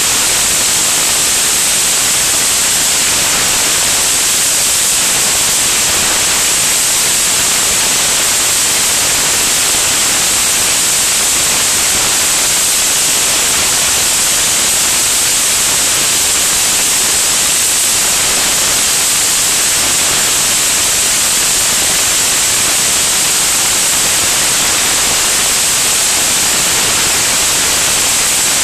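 Steady, loud rushing hiss of airflow over a camera mounted under an aircraft's wing in flight, with no engine tone in it.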